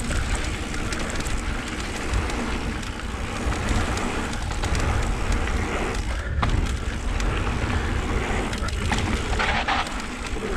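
Mountain bike riding down a dirt trail heard on a GoPro: tyres rolling over dirt and rattles from the bike, with heavy wind buffeting the microphone. There is a brief lull about six seconds in before the rolling noise comes back.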